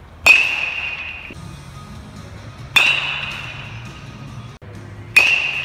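Metal baseball bat striking tossed baseballs three times, about two and a half seconds apart. Each hit is a sharp, loud ping that rings and fades over about a second.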